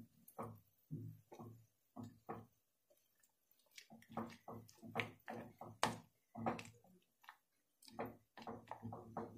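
A spatula scraping and stirring thick, half-melted grated chocolate compound in a glass bowl, heard as faint, repeated short strokes at about two a second. The strokes pause for about a second near the middle.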